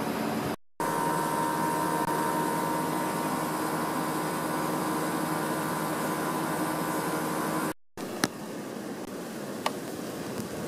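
Steady rushing noise of wind in a snowstorm, with a faint steady hum under it, cut off abruptly twice; after the second cut the rush is quieter and two sharp clicks sound.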